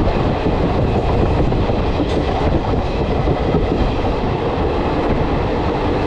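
Express train running at speed, heard from an open coach doorway: a steady rush of wheels on the rails mixed with wind blowing over the microphone.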